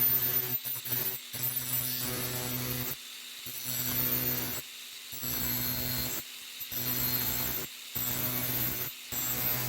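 Angle grinder with a thin-kerf stainless steel cutting disc running in short spells of a second or two with abrupt breaks, a steady motor hum under a high whine, as it cuts new teeth slots into an oscillating multi-tool blade.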